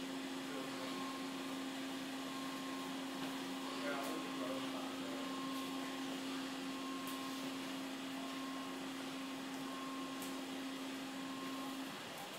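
A steady low machine hum over a hiss, which stops shortly before the end. Faint voices in the background about four seconds in.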